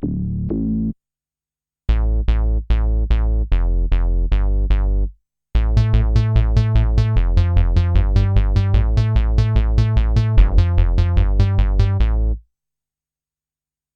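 Kurzweil K2000 synthesizer factory patch played dry, with no effects: a few short, sharp-attack pitched notes with a heavy bass, a brief pause, then a fast run of notes at about four a second that stops abruptly, leaving silence near the end.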